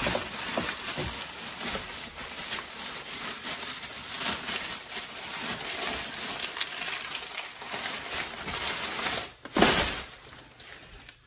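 Plastic packaging bags crinkling and rustling steadily as parts are pulled out of a cardboard shipping box, with one louder rustle about nine and a half seconds in.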